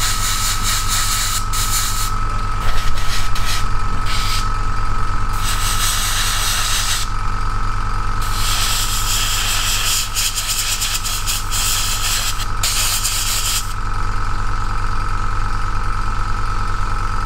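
Airbrush compressor motor running with a steady hum and a thin whine, while the airbrush hisses in several bursts as primer is sprayed. The spray hiss stops about 14 seconds in, leaving the compressor running.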